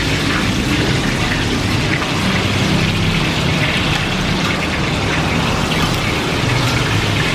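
Martabak telur frying in shallow oil on a flat iron pan over a gas flame. Steady sizzling of the oil together with the rush of the burner.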